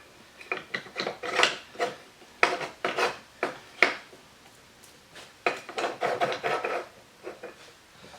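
Irregular metallic clicks, clinks and scrapes from the parts of a cordless sliding compound miter saw being handled and adjusted by hand, with a longer stretch of rubbing about five and a half seconds in.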